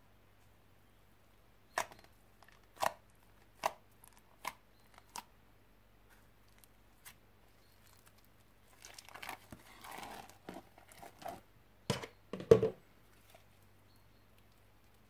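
Slime being worked by hand while it is mixed. There are five sharp pops about a second apart, then a few seconds of crackling, then two louder pops close together near the end.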